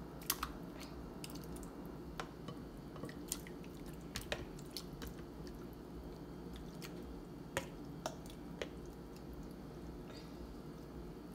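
A metal fork scraping crushed tomatoes out of a plastic tub into a baking dish: scattered light clicks and taps of the fork on the plastic, with soft wet squishes of the tomato pieces.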